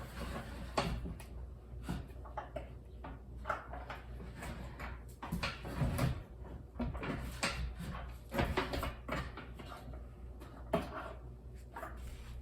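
Irregular knocks, clicks and rubbing from objects being handled over a low steady hum.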